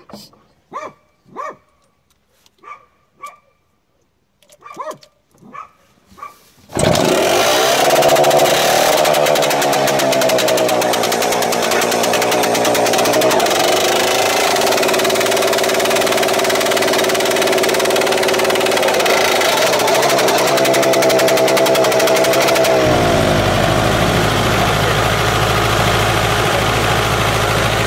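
A dog yaps several times. About seven seconds in, a tractor's pull-started petrol pony engine (starting motor) catches and runs at high revs, its pitch rising and falling. Near the end the big diesel it drives turns over, and a low steady drone joins in.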